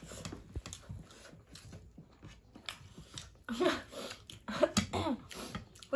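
Close-up eating sounds: chewing and biting food, with scattered light clicks and taps, and a voice briefly in the second half.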